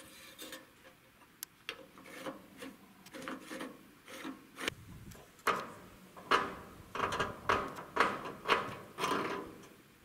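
Rasping metal strokes from a hand lever on a vintage Fiat crawler bulldozer being worked back and forth. Scattered soft scrapes and clicks at first, then from about halfway louder, regular strokes about two a second.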